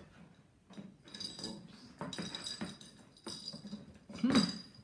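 Small cat toy jingling and rattling as kittens bat it around inside a cardboard play box with holes, in irregular bursts, with a short louder sound near the end.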